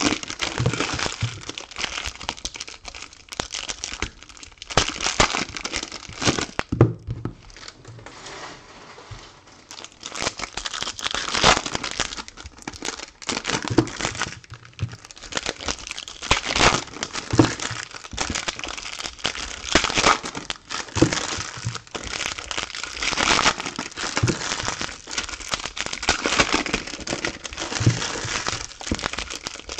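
Foil wrappers of trading-card packs being torn open and crumpled in irregular bursts, with cards handled and slid into stacks on the table in between.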